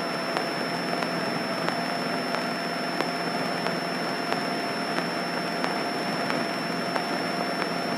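Steady cabin drone of a light single-engine propeller airplane in cruise, an even hiss with a constant hum and faint regular ticks about every two-thirds of a second.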